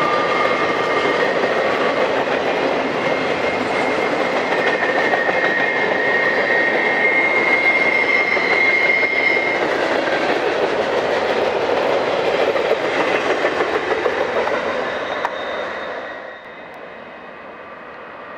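Norfolk Southern mixed freight train's cars rolling past close by: steady rumble and clatter of steel wheels on the rails, with high thin squealing tones coming and going. The noise drops away sharply about 16 seconds in.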